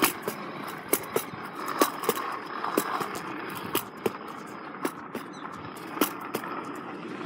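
RipStik caster board's wheels rolling over concrete sidewalk: a steady rolling rumble broken by sharp clicks every half second to a second.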